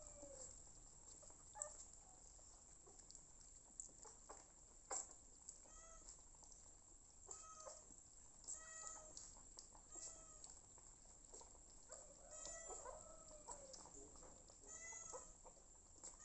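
Young puppies whining, faint short high cries repeated about once a second from about six seconds in, with a few soft clicks before them.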